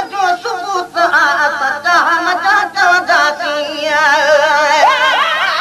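A voice singing a Sindhi devotional naat in a melismatic style, with ornamented gliding phrases and then long held notes with a wide vibrato from about four seconds in.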